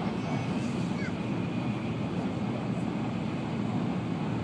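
Steady rumble of an N700-series Shinkansen running at speed, heard inside the passenger cabin.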